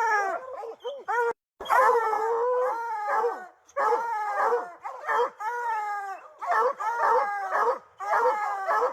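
A pack of bear hounds baying and howling, several voices overlapping in a steady run of short, arching calls. It is typical of hounds that have bayed or treed a bear.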